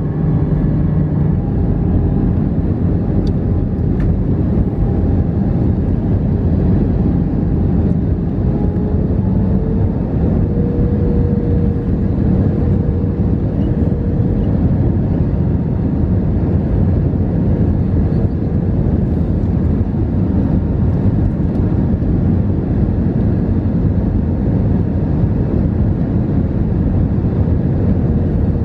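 Steady in-cabin drone of an Airbus A320-214 in flight, its CFM56 engines and the rushing airflow heard from a window seat over the wing. A faint engine tone in the drone rises slightly in pitch about ten seconds in and then holds.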